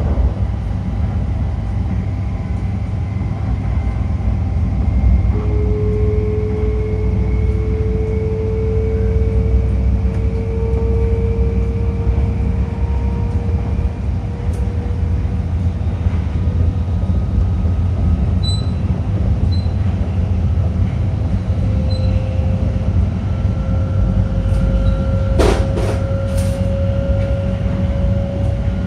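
Onboard running sound of an E5 series Shinkansen: the IGBT-VVVF inverter and traction motors whine, which the uploader takes for a Toshiba unit, in a tone that sets in about five seconds in and rises slowly in pitch, over the steady low rumble of the running train. A couple of sharp clicks come near the end.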